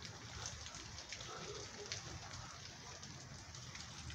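Rain falling steadily, with many separate drops ticking sharply on nearby surfaces.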